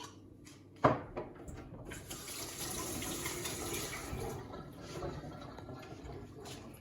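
Water running from a kitchen tap for about four seconds, strongest for the first two and then easing off, after a single sharp knock about a second in.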